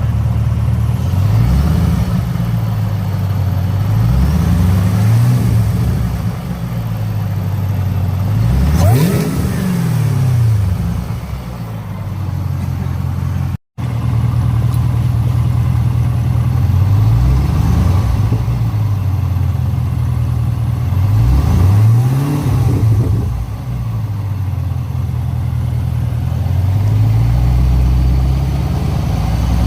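Chevrolet Camaro ZL1's supercharged V8, fitted with a Roto-Fab cold air intake, idling and revved about six times, each rev rising and falling back to idle, with the intake air noise clearly heard. There is a brief cut near the middle.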